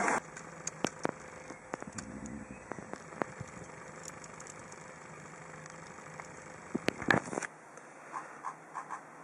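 Scattered light clicks and taps from a hand handling an iPad in its dashboard mount, over a faint steady car-cabin hum, with a short cluster of louder knocks about seven seconds in.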